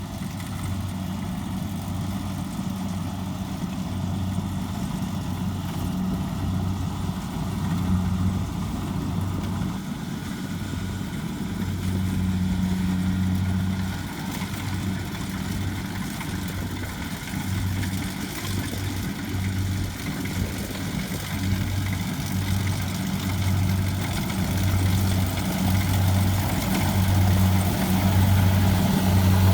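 Kubota DC70 combine harvester's diesel engine running steadily with a low drone that wavers in strength and grows louder toward the end.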